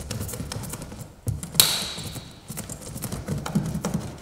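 Hand seam roller being pressed and rolled over EPDM form flashing on a sheet-metal scupper, seating the flashing tight into the 90-degree corner, giving a run of small clicks and taps. There is one louder sharp sound about a second and a half in.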